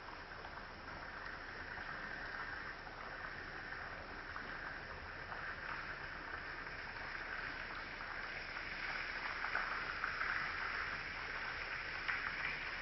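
Small stream babbling and rippling in a steady rush, growing a little louder in the second half.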